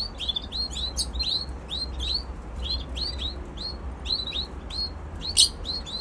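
Canary fledglings begging for food as their mother feeds them: a quick, steady series of short high chirps, several a second, with one louder sharp chirp near the end.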